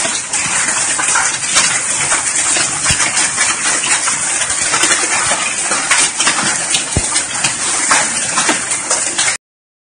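A shower of small volcanic stones from the Soufrière eruption pelting the ground: a dense hiss of countless tiny impacts like heavy rain, with a couple of sharper knocks. It cuts off suddenly near the end.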